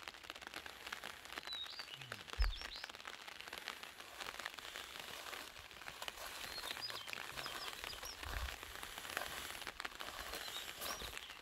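Outdoor ambience of small birds chirping in short high calls over a steady crackling hiss, with two low thumps, one a little over two seconds in and one about eight seconds in.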